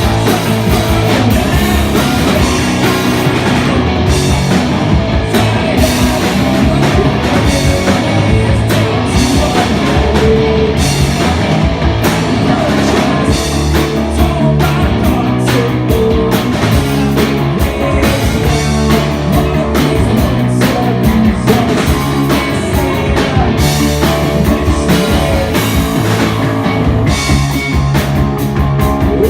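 A rock band playing a song live and loud, with guitar, bass and a busy drum kit.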